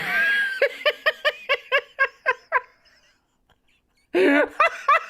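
A woman laughing in a rapid, high-pitched run of about ten 'ha' pulses, about five a second, which stops after a couple of seconds. After a short pause a loud voice comes back near the end.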